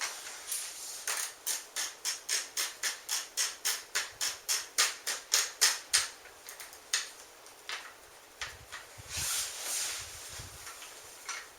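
Magazine tube cap of a Mossberg 500 pump shotgun being unscrewed by hand, giving a steady run of sharp clicks about three times a second as it turns, then a few slower clicks and a short rustle of handling.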